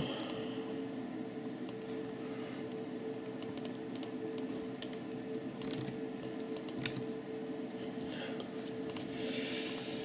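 Scattered clicks on a laptop keyboard, a few at a time with pauses between, over a steady low hum.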